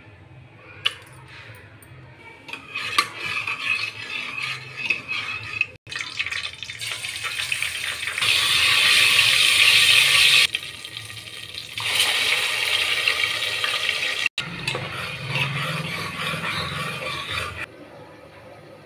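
Whole spices and chillies sizzling in hot oil in a pressure cooker, with a sharp spoon click about a second in. The sizzle swells loudest around the middle, is broken by two brief dropouts, and falls away suddenly near the end.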